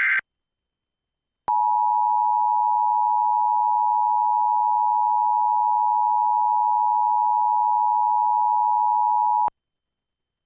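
The last fraction of an Emergency Alert System data burst, then a short silence, then the EAS two-tone attention signal (853 and 960 Hz together) sounding steadily for about eight seconds and cutting off sharply. The tone announces the severe thunderstorm warning that follows.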